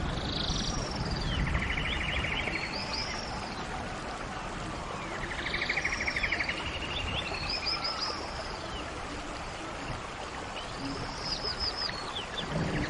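A songbird singing the same phrase three times, about every five seconds: a few high arching notes and a quick buzzy trill, over the steady rush of a stream.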